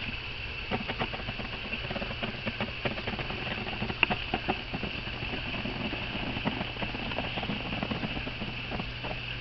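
Wood glue being squeezed from a bottle along the edge of a cork laminate plank: small irregular clicks, ticks and squelches from the bottle and the board, over a steady low hum.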